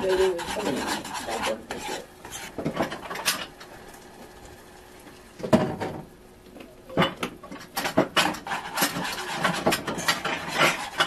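Metal spoon stirring and scraping the bottom of a small saucepan in quick strokes, with a quieter pause about four seconds in before the scraping resumes.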